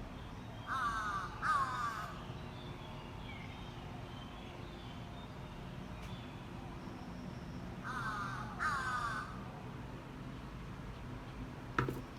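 Animal calls in two pairs: two short, harsh calls about a second in and two more about seven seconds later. A sharp click comes near the end.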